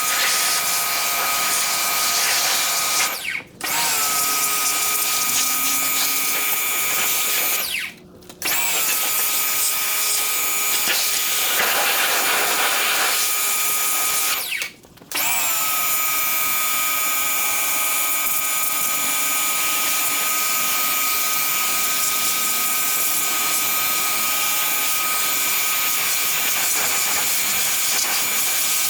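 Electric pressure washer running and spraying, its motor-driven pump whining over the hiss of the water jet. It cuts out briefly three times as the trigger is let go and starts again, the whine rising back up each time.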